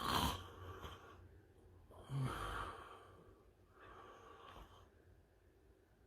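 A sleeping man with sleep apnea snoring: a sharp, loud noisy breath right at the start, a louder snore with a low falling pitch about two seconds in, then a softer breath around four seconds, in an irregular rhythm.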